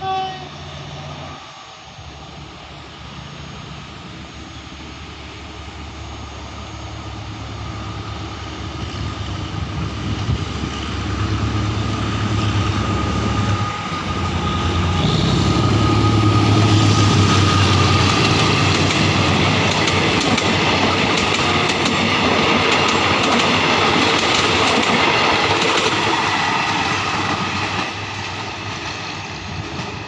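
GEK-class diesel-electric locomotive 4036 gives a short horn blast, then pulls away from a station stop with its diesel engine working, growing louder as it passes close by. The passenger carriages' wheels clack over the rail joints, and the sound eases a little near the end.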